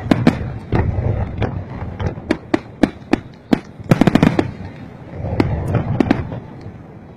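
Aerial fireworks shells bursting: a string of sharp bangs over a low rumble, with a dense rapid volley about four seconds in, then thinning out and fading near the end.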